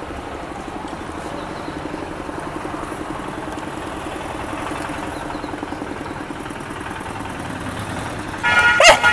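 Steady low rumble of an engine running. Near the end comes a short, loud pitched sound, much louder than the rumble.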